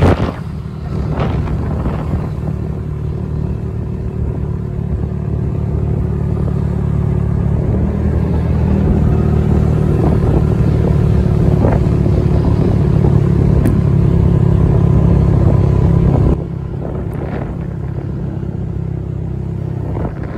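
A motorcycle engine running at road speed, with wind over the microphone. The drone grows slowly louder over the first sixteen seconds or so, then drops abruptly.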